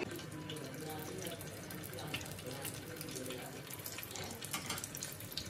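Shami kebabs, coated in beaten egg, sizzling in shallow oil on a flat pan: a steady hiss.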